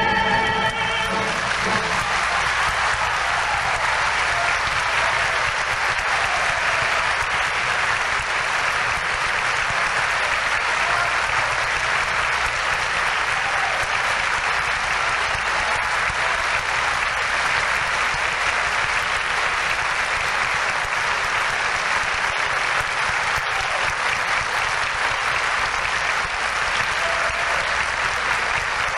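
A theatre audience applauding steadily and densely, starting as the music's final held chord ends about a second in.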